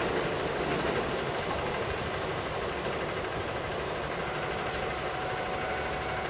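KiHa 47 diesel railcar's engine running as the railcar moves off from the platform, a steady rumble that eases slightly.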